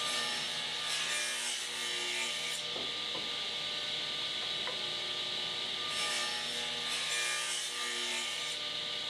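Table saw running steadily while its blade cuts spline slots through wood held in a 45-degree box jig. It makes two passes, one at the start and another from about six seconds in, each a couple of seconds of hissing cut noise over the motor's hum.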